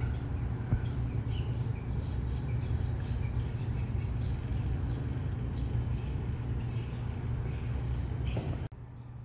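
Steady outdoor background noise, a low rumble with hiss, with faint short high chirps scattered through it. It drops suddenly near the end.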